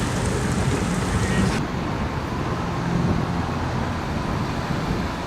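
Steady rumble and hiss of engine or traffic noise; about a second and a half in, the high hiss drops away at an abrupt cut.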